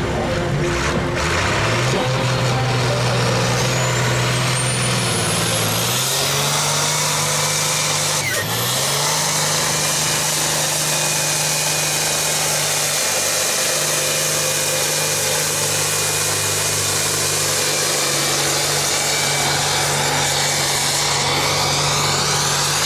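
Diesel tractor engine run hard under full load pulling a weight-transfer sled, its pitch climbing in steps over the first several seconds, dipping briefly about eight seconds in, then held steady. A thin high whine rises alongside it for a few seconds.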